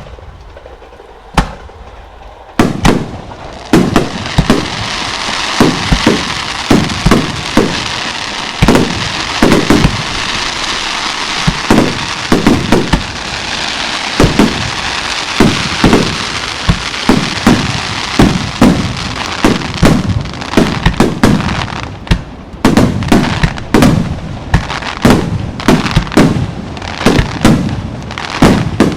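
Aerial fireworks shells bursting in rapid succession, a few single bangs, then about two and a half seconds in a dense barrage of booms one after another over continuous crackling.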